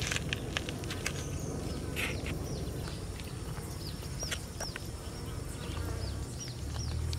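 Outdoor ambience: small birds making short, high chirps that fall in pitch, several a second, over a steady low rumble. A few light taps come in the first two seconds.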